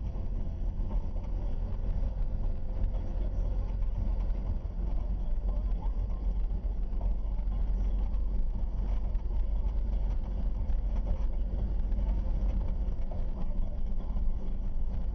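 Car driving at a steady speed, heard from inside the cabin: a steady low rumble of engine and tyre road noise with no changes or sudden sounds.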